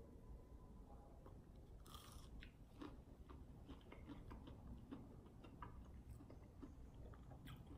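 Faint close-up chewing of a bitten chicken nugget: soft, wet mouth clicks and smacks, with a brief louder rush about two seconds in.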